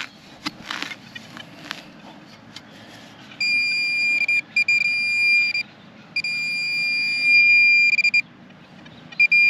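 A few short scrapes and knocks of digging, then a metal-detecting pinpointer sounding a steady high-pitched electronic tone in three stretches of about two seconds each, with short breaks between, as it sits over a buried metal target.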